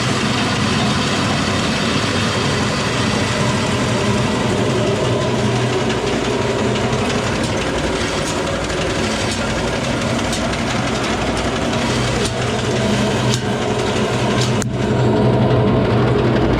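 An old bulgur mill cracking wheat between its millstones, running with a steady low hum and a rattle. Faint ticks come about once a second in the second half, with one sharp click near the end after which it runs a little louder.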